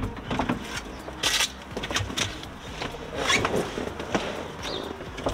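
Clothing rustling and scuffing knocks as a person climbs into a van's driver seat, in several short irregular bursts.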